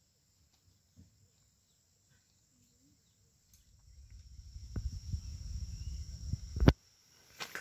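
Faint, steady, high-pitched insect chirring. About four seconds in, a low rumble swells up and stops abruptly with a sharp click, and a second click follows near the end.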